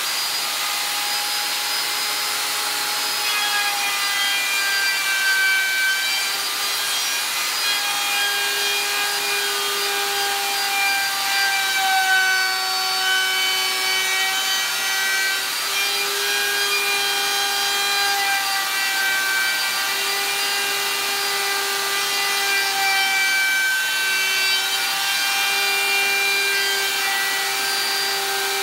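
Handheld electric router running at full speed while cutting a high-density polyethylene board: a steady high motor whine with a rasping cutting noise, the pitch dipping and recovering slightly as the bit bites into the plastic.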